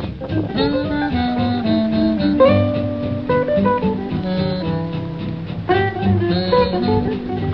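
Instrumental music: a quick run of short melodic notes over a bass line.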